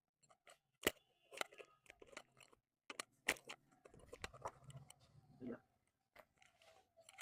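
Sharp cracking and crunching clicks, several over a few seconds among rustling of clothing and hands: the patient's back joints popping during a chiropractic spinal adjustment for lower-back stiffness.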